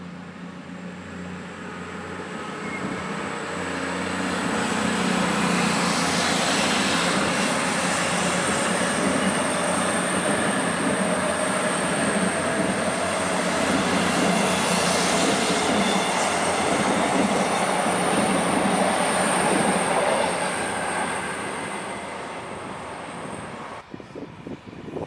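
A Voyager diesel-electric multiple unit passing at speed: its engines and wheels on the rails build up over the first few seconds, hold loud as the coaches go by, then fade. A thin steady high whine runs over it, and the sound cuts off abruptly near the end.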